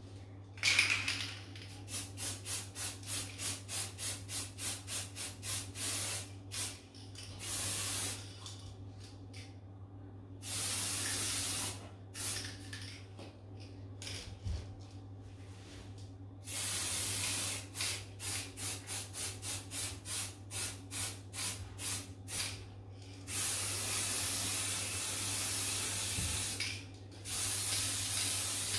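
Aerosol spray paint can spraying: runs of short quick hisses, about three a second, alternate with longer continuous sprays of a few seconds each.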